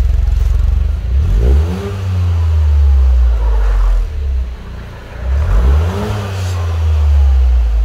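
Toyota GR Yaris's turbocharged 1.6-litre three-cylinder engine idling through a newly fitted Yashio Factory Super Silent Titan titanium exhaust, blipped twice about four seconds apart. Each time the pitch climbs and drops back to idle.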